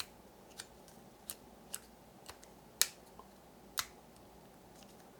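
Scattered sharp clicks and taps from handling the Comica Traxshot shotgun microphone, about seven in all at uneven intervals. The loudest comes nearly three seconds in and another nearly four seconds in.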